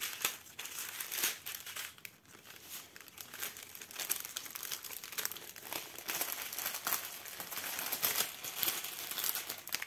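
Clear plastic packaging crinkling and rustling as it is handled: the plastic sleeve of a diamond-painting canvas and strips of bagged rhinestones, in a continuous run of small crackles.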